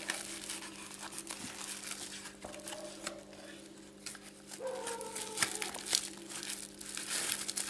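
Packaging crinkling and rustling in irregular crackles and clicks as an LCD screen is packed away by hand, over a steady low hum.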